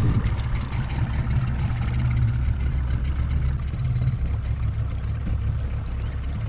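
Boat's outboard motor running steadily at slow trolling speed, a low even hum.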